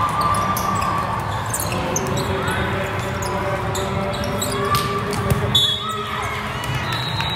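Volleyballs being struck and bouncing in a large echoing sports hall: many short sharp slaps of hands and arms on balls and balls hitting the floor, over the chatter of players' and spectators' voices.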